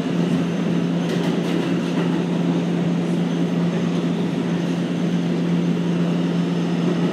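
R211A subway train running: a steady rumble with a constant low hum that does not rise or fall.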